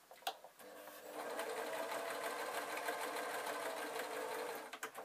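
Electric sewing machine stitching a seam: it starts up about a second in and runs steadily, then stops briefly with a few clicks near the end.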